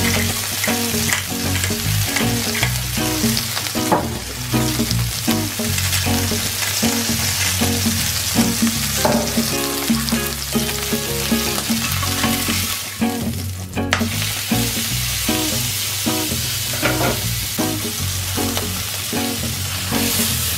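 A zebra-meat burger patty sizzling in oil in a non-stick frying pan, with background music playing over it.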